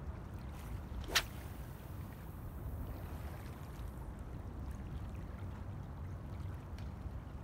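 A 2.7 m spinning rod whipped forward in a cast about a second in: one short, rising whoosh as the rod and braided line cut the air, sending a 30 g metal jig out, followed by a faint hiss as the line pays out for a couple of seconds. A steady low rumble of wind and sea runs underneath.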